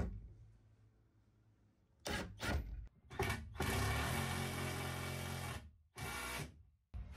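Ryobi cordless driver spinning a socket on an M8 hex bolt, driving it through a pine furring strip into a rivnut in the van wall: a few short bursts, then a steady run of about two seconds, then one more short burst near the end.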